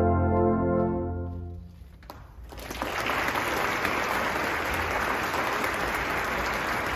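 A brass band's final held chord fades away, then audience applause breaks out about two and a half seconds in and carries on steadily.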